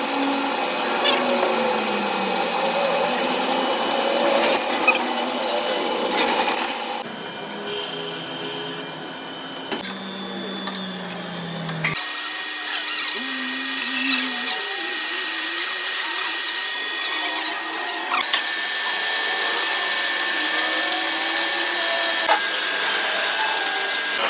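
Power tool and machining noise during metal repair work on an axle spindle, a steady mechanical whine and grind that changes abruptly several times, with a few sharp clicks.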